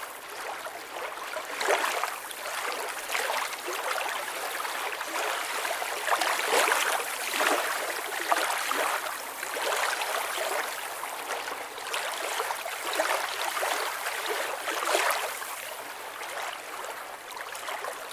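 Lake water lapping and splashing in irregular surges, a swell every second or two.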